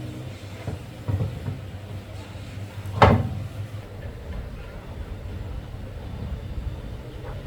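A loud single knock about three seconds in, with a couple of lighter knocks before it, over a steady low hum.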